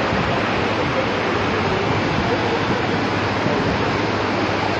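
Floodwater rushing fast along a street and pouring down a flight of steps: a loud, steady rushing roar of a strong current.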